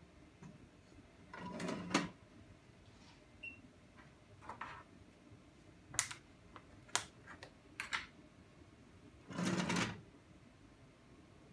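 Bench-work handling noises at an analytical balance: a longer scrape or knock about a second and a half in and another near the end as a glass crucible and the balance's glass draft shield are handled, with a few sharp clicks in between as the balance's keypad is pressed.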